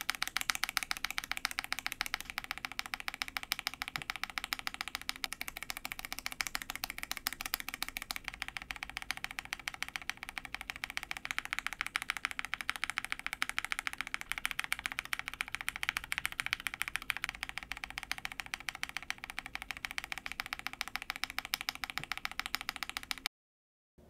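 Rapid typing on a mechanical keyboard fitted with linear switches: a dense, steady run of key clacks. The switches change between takes, among them unlubed Cow POM linears and lubed NK Cream linears. Cuts off abruptly near the end.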